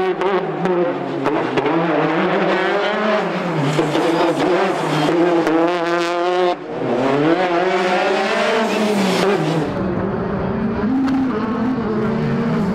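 Citroën DS3 rally car engine revving hard as the car drives past, its pitch climbing and falling through repeated gear changes. There is a brief lift off the throttle about six and a half seconds in, then it climbs again. Near the end it is heard from farther away.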